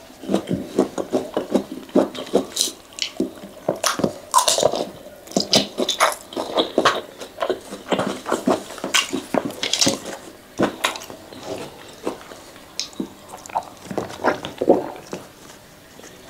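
Close-miked chewing and mouth sounds of someone eating fried flat rice noodles, with irregular soft clicks and scrapes of a metal spoon and fork in a styrofoam food box.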